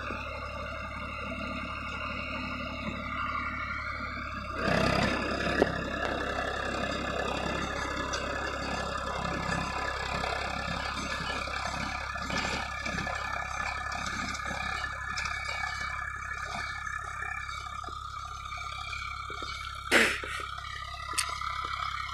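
Eicher 333 tractor's diesel engine running steadily under load while driving a rotavator through dry soil. A brief rush of noise comes about four and a half seconds in, and a sharp knock, the loudest sound, near the end.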